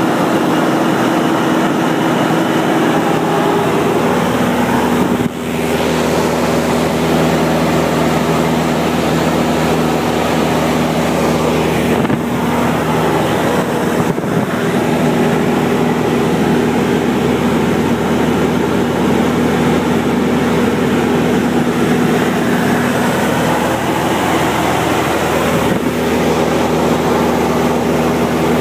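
Light airplane's engine and propeller droning steadily at cruise, heard inside the cabin, with several steady hum tones under it. The level dips briefly about five seconds in.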